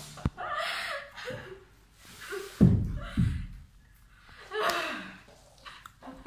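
A sharp click just after the start and a heavy thud about two and a half seconds in, the loudest sound, with short bursts of voice around them.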